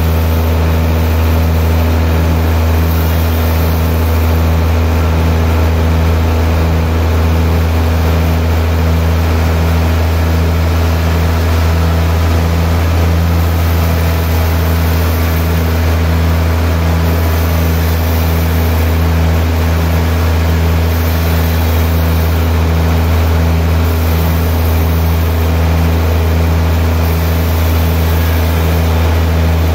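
Large sawmill band saw running and cutting through a big log, a steady loud machine drone with a faint pulsing about twice a second.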